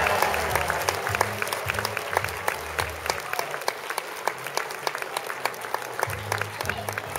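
Audience applauding, the clapping gradually thinning and getting quieter.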